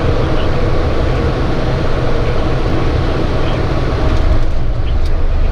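Steady loud rumble and hiss of running machinery, growing slightly louder about four seconds in.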